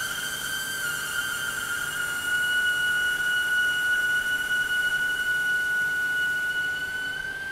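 A steady high-pitched whistle over a faint hiss from water forced through nearly closed valves on a pressure-reducing-valve test rig, as the flow is throttled toward zero against high upstream pressure. The pitch dips slightly about a second in and lifts a little near the end.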